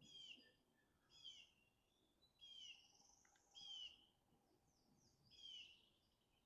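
Faint birdsong: a songbird repeating a short chirpy phrase about once a second, with a faint outdoor background.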